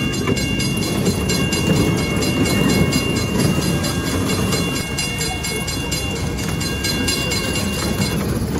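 Children's kiddie train ride running on its small rail track: a steady rumble with rapid, even clicking of the wheels, about three to four clicks a second, and a steady high whine that stops near the end.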